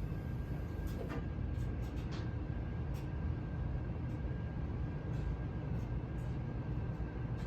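2005 Emerson Summer Night ceiling fan running on medium speed: a steady motor hum and air rush with a faint steady high whine and a few faint ticks.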